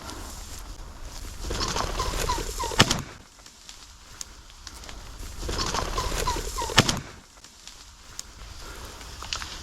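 A rooster common pheasant flushing with a run of short cackling calls over rushing wing noise, twice. Each flush ends in a single sharp crack.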